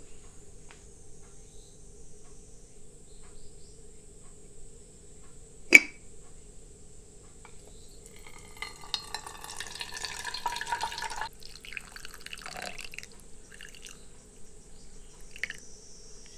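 A drink poured from a ceramic jug over ice into a hammered copper mug for about three seconds, after a single sharp clink about six seconds in and followed by a few small clinks. Cicadas buzz steadily throughout.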